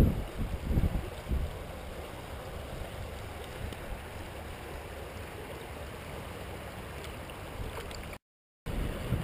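Steady rush of a shallow river flowing, with wind buffeting the microphone in the first second or so. The sound cuts out completely for a moment near the end.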